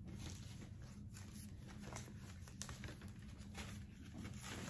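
Faint rustling and light taps of a cardboard and paper packaging insert being picked up and handled, over a low steady hum.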